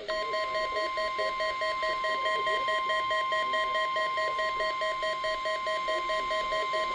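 NOAA Weather Radio's weather alert tone: a single steady high tone, the warning-alarm signal of the required weekly test. A second, fast-pulsing alarm beep sounds along with it.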